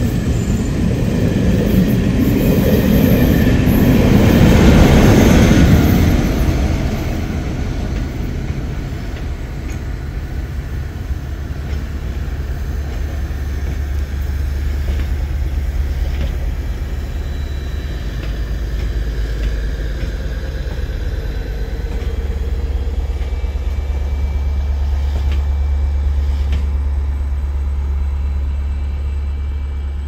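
Passenger coaches of a locomotive-hauled train running past, loudest about five seconds in and fading by about seven seconds. A steady low hum carries on after the coaches have gone.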